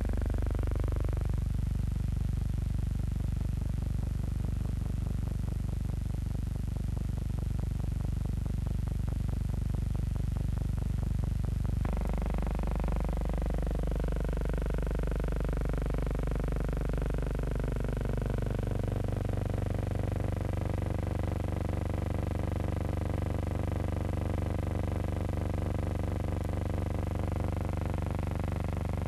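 Early piston-engined helicopter running in a steady low drone. Its pitch rises in the first second or so, changes abruptly about twelve seconds in, then slowly falls over the next several seconds.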